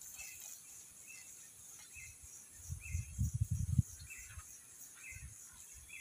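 Outdoor grassland ambience: a steady high insect hum with short chirps repeating every half-second or so, and a low rumbling burst about three seconds in. The peacock itself does not call.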